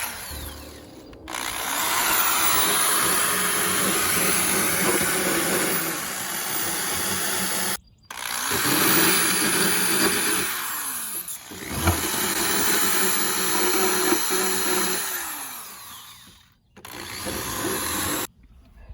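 Power tool spinning a rotary burr bit against sheet metal, grinding the sharp edge off a freshly drilled hole in the van's body. It runs in long spells with a steady whine under the grinding noise, stopping briefly about eight seconds in and again near the end.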